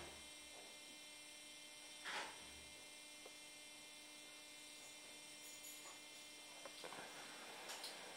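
Near silence with a faint steady electrical hum. There is a brief soft noise about two seconds in, and faint crackling near the end.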